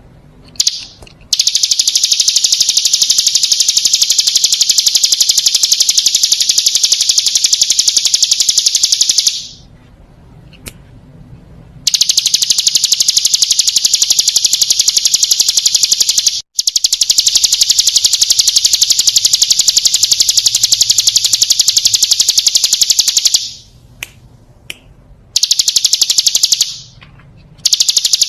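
Hill prinia (ciblek gunung) song: long, very rapid high-pitched trills, each run lasting several seconds to about eleven, with short pauses between runs.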